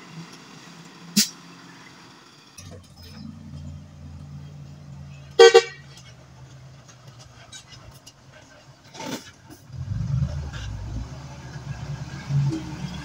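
A Hino dump truck's diesel engine running as the truck drives across the dirt, growing louder near the end as it comes close. A single short, loud horn toot about five and a half seconds in.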